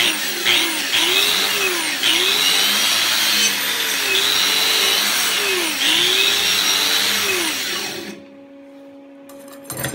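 Angle grinder with a wire wheel brushing slag off a stick-weld fill pass on a steel plate. The motor's pitch dips and recovers again and again as the wheel is pressed on and eased off. It stops about eight seconds in, and a short metallic clink comes near the end.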